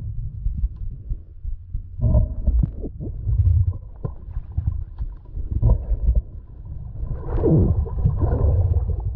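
Muffled underwater noise heard through a camera's waterproof housing: an uneven low rumble and thumping of moving water, busier and more gurgling near the end as the camera nears the surface.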